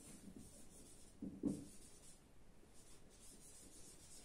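Faint rubbing and squeaking of a marker writing on a whiteboard.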